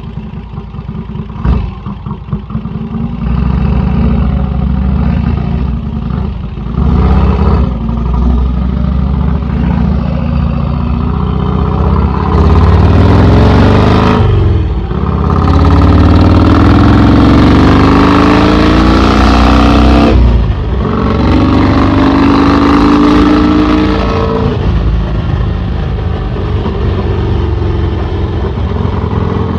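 Vincent 1000cc V-twin with an open straight-through exhaust, pulling away from slow running and accelerating hard. The pitch climbs through the gears, with brief dips at the shifts about halfway and two-thirds of the way in, then settles to a steady cruise. A rush of wind noise joins it over the fastest stretch.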